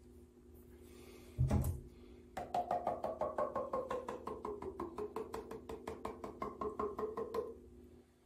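Plastic rabbit chocolate mould held upside down over the bowl and tapped rapidly and steadily, about five taps a second for some five seconds, to knock the excess tempered chocolate out of the shell. Each tap has a hollow ring that slowly falls in pitch. A single dull thump comes about a second and a half in.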